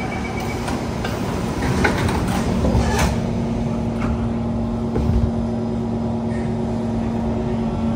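Cabin noise inside a Kawasaki C151 MRT train on an underground line: a steady rumble with a few knocks about two, three and five seconds in, and a steady hum that sets in about three seconds in.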